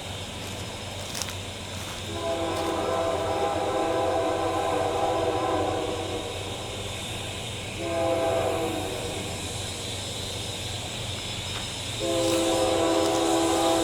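Diesel freight locomotive's air horn sounding a chord for a grade crossing: a long blast of about four seconds, a short one around eight seconds in, then another long blast that starts near the end.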